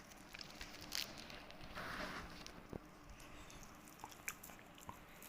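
Faint rustling and scattered small clicks of hands handling and tying rope around a wrist, with a brief rustle about two seconds in.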